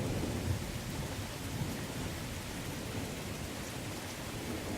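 Heavy rain pouring steadily, with a low rumble of thunder underneath that eases slightly over the few seconds.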